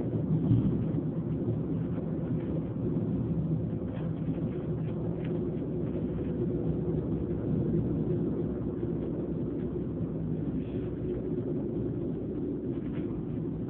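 Train running with a steady low hum.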